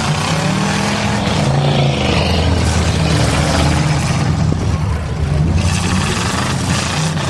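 Several demolition derby cars' V8 engines running hard in the dirt arena, revving up and down and overlapping one another.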